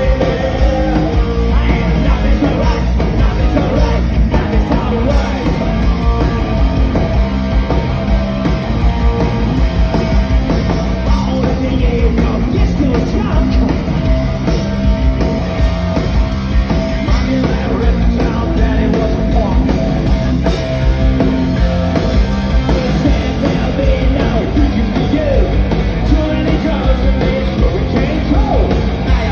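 Live punk rock band playing loud: drum kit and electric bass driving under a singer's vocals, heard from within the crowd.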